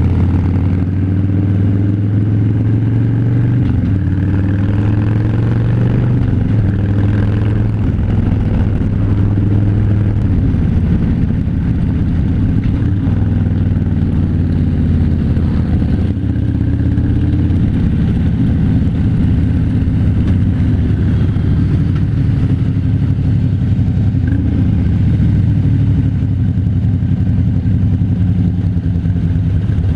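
Harley-Davidson V-twin motorcycle engine running while riding, its pitch drifting gently up and down with the throttle.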